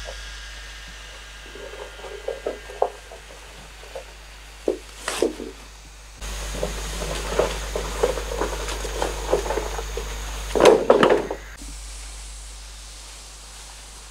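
Bamboo poles knocking and clattering as they are handled and dropped onto a pile, with scattered knocks and rustling in leaf litter and a loud cluster of clatters a little before three-quarters of the way through.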